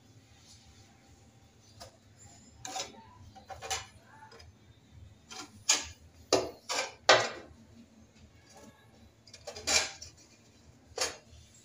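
Hand scraper scraping and knocking against ceramic tile while spreading non-sag epoxy: a string of short, uneven strokes, the loudest cluster in the middle.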